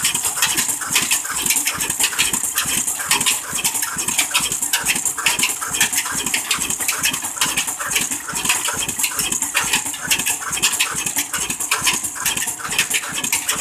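Old Ruston stationary diesel engine running steadily with a fast, even metallic clatter, driving a belt line shaft and a toka chaff cutter.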